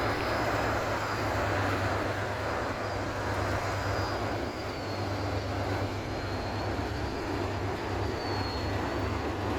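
Car ferry's engines running, a steady low drone under a constant rush of noise, with a faint wavering high whine.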